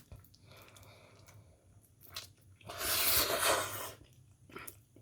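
A person eating instant fried noodles close to the microphone: soft mouth and chewing sounds with a few small clicks, and a louder noisy stretch lasting about a second, about three seconds in.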